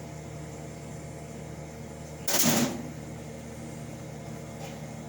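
Mitchell dehumidifier running with a steady hum from its compressor and fan, and one brief loud scrape or clatter about two seconds in as its case is being worked back on.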